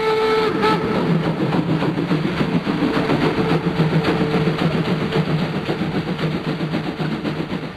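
Steam locomotive whistle blowing, cutting off about half a second in, followed by the locomotive working hard with a rapid, even exhaust beat. The beat fades away near the end.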